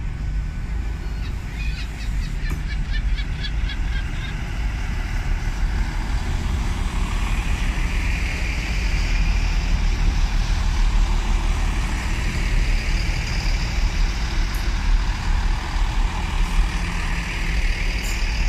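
Great Western Railway Turbo diesel multiple unit running past along a station platform: a steady low diesel engine drone with wheel and rail noise. A quick run of high-pitched ticks comes about one to four seconds in, and a hiss of wheels and air swells as the cars go by.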